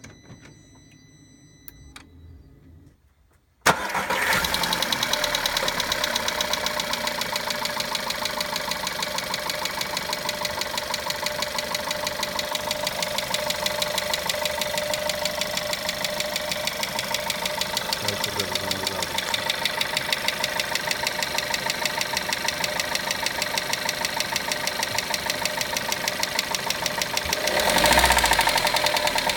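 Volkswagen Golf 1.4 TSI petrol engine starting about four seconds in and then idling with a rapid, even clicking, the clicking noise the owner is recording. Near the end the engine is briefly revved. Before the start there is a faint high electronic beep.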